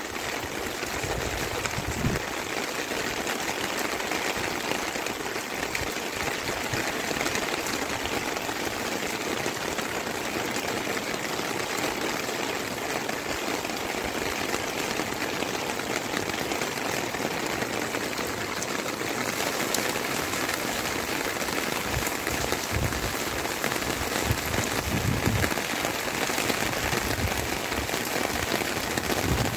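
Steady rain falling on fields and trees, an even hiss with no let-up. A few soft low bumps come near the end.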